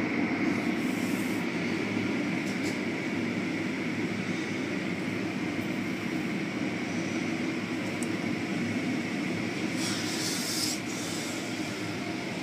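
Automatic car wash heard from inside the car: hanging cloth strips rubbing and slapping over the car over a steady rumble of the wash machinery. A brief hiss comes about ten seconds in.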